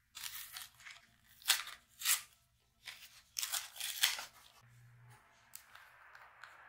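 Curél lip balm packaging being torn open and crinkled by hand: a run of sharp rips and rustles, the loudest two about one and a half and two seconds in.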